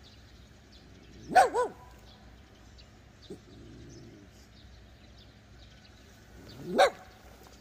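A dog barking: a quick double bark about a second in, then a single bark near the end.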